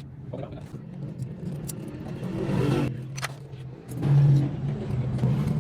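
A motorcycle engine running steadily, with a brief rise in level about four seconds in and a few light clicks.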